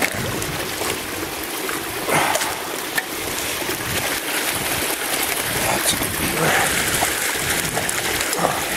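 Icy water splashing and sloshing as a large trapped beaver is pulled through a hole in the ice, with scattered sharp knocks.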